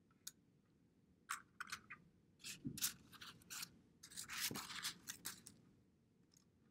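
Algebra tiles being slid and set down on a sheet on the desk: a series of faint short scrapes and clicks for a few seconds, then quiet.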